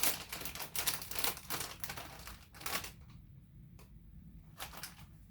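Plastic chip bag crinkling and crackling as it is pulled open, with dense rapid crackles for about the first three seconds and then only a few scattered crackles.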